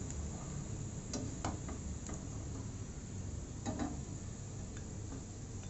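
Slotted spatula clicking and scraping against a frying pan as lightly browned sliced onions are stirred and lifted out of hot mustard oil: a few separate sharp clicks over a steady low hum.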